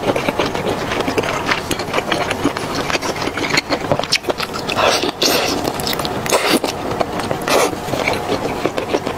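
Close-miked eating sounds: sauce-coated spicy stir-fried octopus being pulled apart by hand and chewed, a dense run of wet clicks and squelches with a few louder squelches in the middle.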